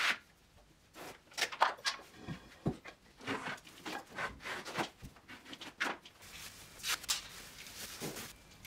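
Thin plastic drop sheet rustling and crinkling as it is handled and fixed to a wall, with scattered light knocks and taps; the crinkling is brightest near the end.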